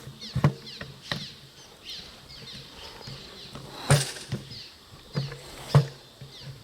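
Fishing gear being handled and set down: a string of irregular knocks and thuds, the loudest about four seconds in and again near the end, over faint repeated high chirps.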